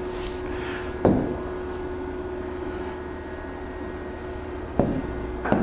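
A few light taps of a stylus on an interactive smart-board screen, over a steady low room hum with a faint steady tone.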